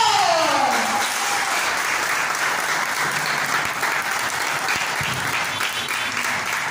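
A group of people applauding, with steady clapping throughout. It opens with one loud drawn-out call that falls in pitch during the first second.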